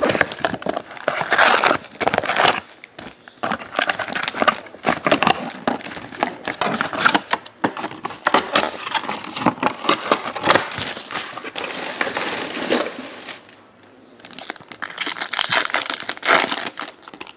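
Plastic wrapping and trading-card pack wrappers crinkling and tearing as a box of baseball cards is unwrapped and its packs opened, in a steady irregular crackle with a brief lull near the end.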